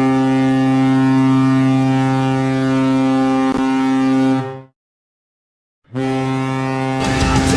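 Ice hockey goal horn sounding one long, steady, deep blast that cuts off sharply, then a second blast after about a second of silence. A noisier din comes in under the second blast near the end.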